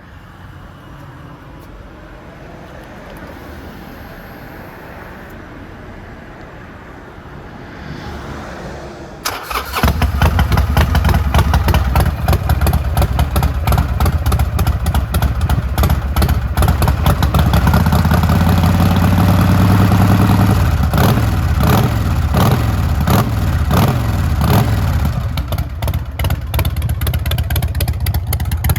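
Harley-Davidson Sportster XL1200R's fuel-injected V-twin with Vance & Hines mufflers starting up about nine seconds in, after a quieter stretch, then idling with a fast pulsing beat. Past the middle it is revved and held up for a few seconds, then the revs fall back to idle.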